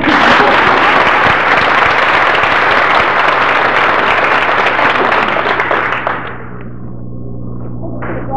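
Audience applauding. The clapping starts abruptly and dies away after about six seconds.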